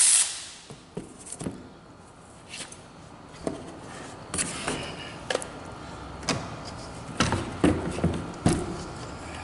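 A loud hiss dies away in the first moment, then come scattered, irregular clicks and clunks of hand tools and hard plastic and metal parts as a radiator is unbolted from its fan assembly.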